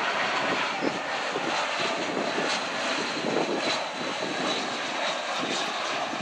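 Airbus A320-family jet on final approach with its landing gear down, engines giving a steady jet noise.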